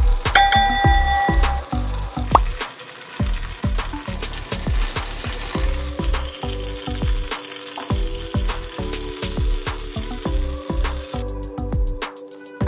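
Chicken pieces sizzling as they fry in butter and oil in a nonstick pan, stirred with a silicone spatula; the sizzle stops about a second before the end. Background music with a steady beat plays throughout, and a brief bright chime sounds near the start.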